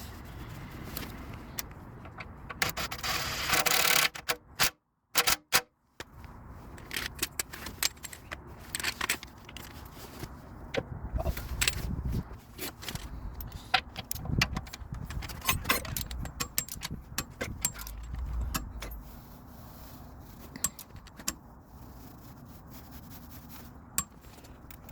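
Small metal objects clinking and rattling in many sharp, irregular clicks, with a louder scraping rush about three seconds in and a short break near five seconds.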